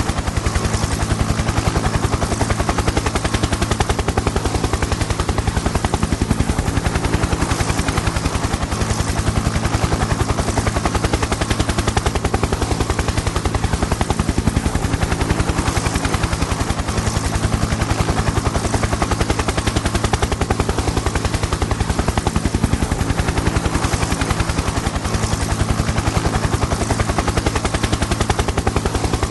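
Helicopter in flight: a rapid, even chop of the rotor blades over a steady low engine hum, unchanging throughout.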